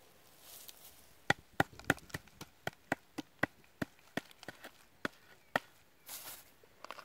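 Hard, fire-baked clay casing around a chicken being knocked repeatedly to crack it open: about fifteen sharp knocks, three or four a second, starting about a second in.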